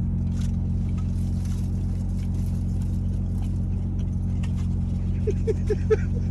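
Car engine idling steadily, heard inside the cabin as a constant low hum, with scattered small clicks and a few short blips of sound near the end.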